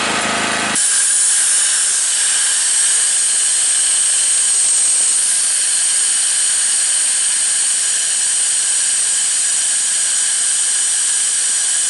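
Compressed air blowing steadily out of an air compressor's tank through a hose fitting: a loud hiss that starts abruptly about a second in, bleeding down the over-full tank.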